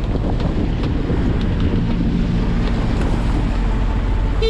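Boat engine idling at the pier, a steady low running sound, with wind buffeting the microphone.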